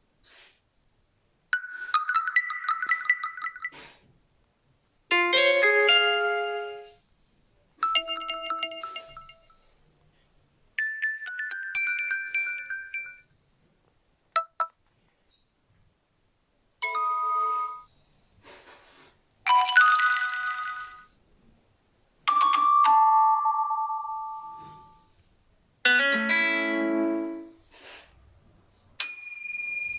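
A run of short Huawei phone notification tones played one after another, about nine in turn. Each is a brief pitched chime or jingle of one to two seconds, with short silences between them.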